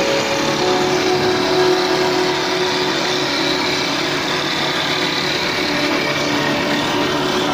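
Wood-rounding (dowel-making) machine running steadily, its cutter head shaving a square wooden stick into a round rod as it is fed through.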